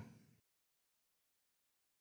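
Near silence: the tail of a narrator's last word fades out in the first half-second, then dead digital silence.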